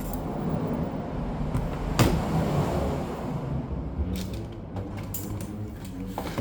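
Plastic laptop parts creaking and clicking as they are handled and taken apart, with a sharp click about two seconds in and a few more clicks later.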